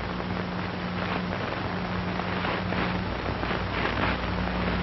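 Steady hiss and low mains-like hum of an old optical film soundtrack, with no narration.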